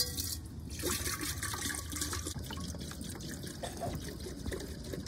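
Water pouring and trickling into a white enamel kettle, first from a drink cooler's spigot and then from a plastic jug, splashing irregularly as it fills.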